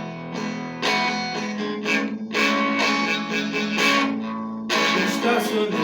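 Guitar strumming chords in an instrumental passage of a song, with no singing.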